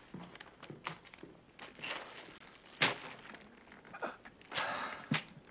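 A plastic bag crinkling as it is handled on a desk, with scattered soft knocks and one sharp click about three seconds in.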